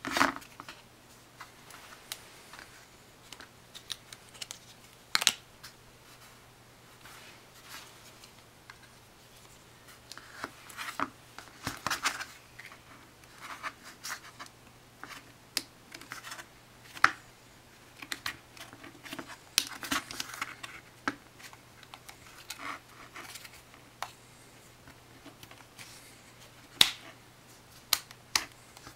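Handling noise as an iPhone is worked into a rubbery Speck SpeckSkin case: irregular clicks, taps and short scratchy rubs of the case against the phone, with a louder knock right at the start.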